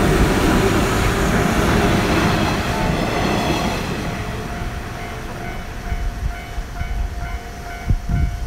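A train running past with a loud rumbling noise that fades away about halfway through. After that a steady tone and a rapid, evenly repeated pinging signal carry on.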